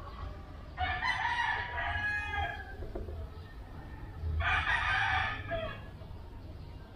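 A rooster crowing twice, about a second in and again about four seconds in, each call lasting over a second and the first trailing off at the end.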